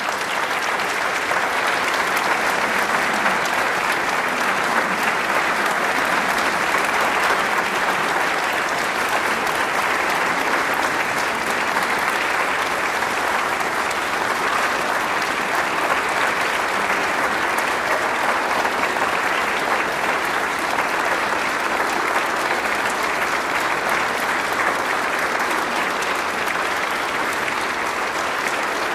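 Audience applauding steadily: a long, sustained ovation from many people clapping.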